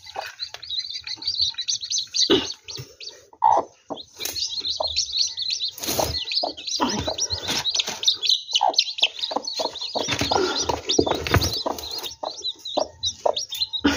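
Newly hatched chicks peeping rapidly and continuously in high-pitched chirps. Scattered thumps and rustling come from a hand working under the brooding hen in the nest basin.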